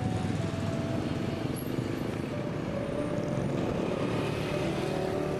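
Street traffic with motorcycles passing close by.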